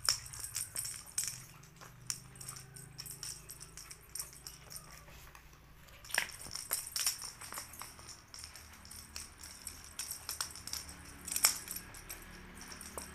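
Kittens playing with a cat teaser wand on a tiled floor: scattered light clicks and jingling taps as the wand and paws hit the tiles, with a few sharper ones about six seconds in and near the end.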